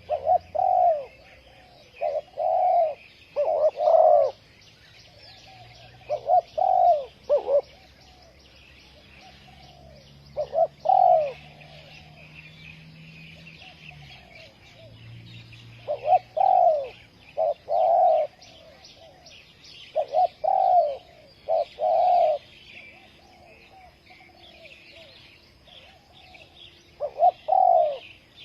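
Spotted dove cooing in short phrases of two to three notes, repeated every few seconds with pauses between. Small birds chirp steadily behind it.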